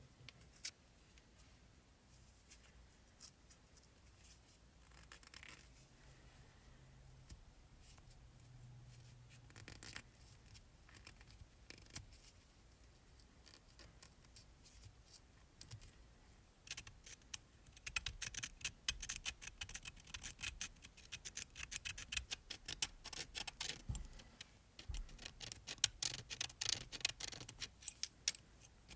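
Close-up scratching and scraping from scrubbing rust and grime off the metal parts of a Snap-on 1/4-inch drive ratchet. It is faint and sparse at first, then rapid and dense for the last twelve seconds or so.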